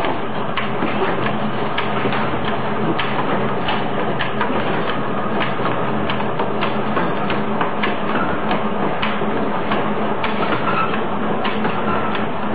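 CN-A200 automatic plastic cylinder making machine running: a steady hum with sharp mechanical clicks about twice a second.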